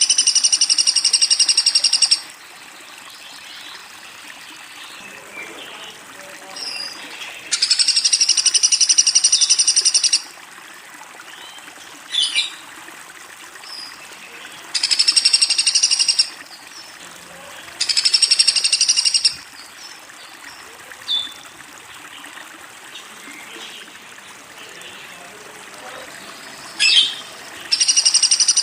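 Woodpecker calling in loud, fast, high-pitched trills, each lasting two to three seconds and repeated about five times with pauses between. Faint short chirps and a steady hiss fill the gaps.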